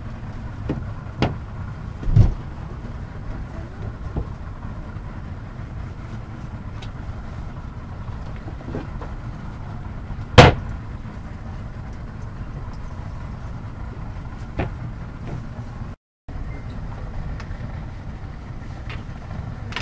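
Boat engine idling with a steady low rumble. Several sharp knocks sound over it, the loudest about halfway through, and the sound cuts out for a moment near the end.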